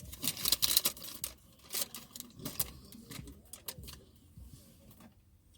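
Close handling noise: rustling and crackling with quick clicks, densest in the first second and a half, then scattered clicks that thin out.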